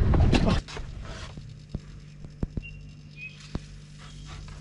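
Wind rushing over the microphone on a fast-moving boat, cut off abruptly about half a second in. Then a quiet steady low hum, broken by a few sharp clicks and two short high chirps.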